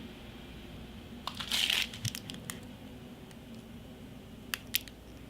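Battery and charger packaging being handled: a brief rustle about a second and a half in, then a few light clicks and taps, two of them near the end.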